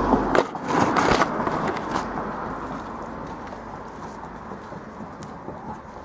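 Handheld camera being handled and set down: rubbing and a few knocks on its microphone in the first two seconds, then a steady hiss that slowly fades.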